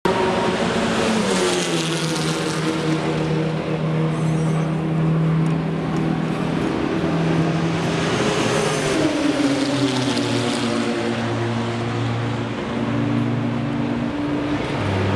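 Racing car engines: cars go past one after another, each swelling and then fading, their pitch falling as they move away. Under them runs a steady engine drone.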